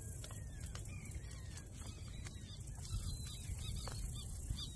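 Birds chirping over and over in many short, quick calls, over a low, steady rumble.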